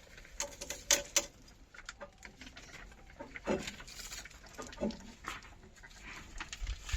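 Scattered clicks and knocks of hand tools on metal tractor parts, with two sharp knocks about a second in.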